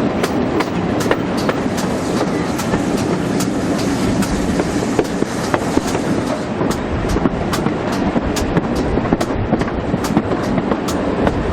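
Steam-hauled heritage train running along the line: the carriage rumbles and hisses steadily, with a regular clickety-clack of about three clicks a second.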